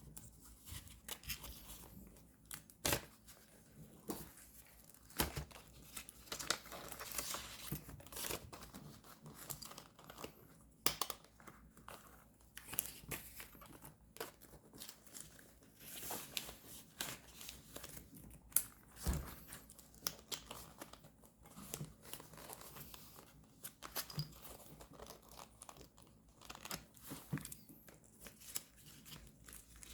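Paper rustling, crinkling and tearing, with many scattered sharp taps and clicks, as papers and stickers are handled for journal decorating.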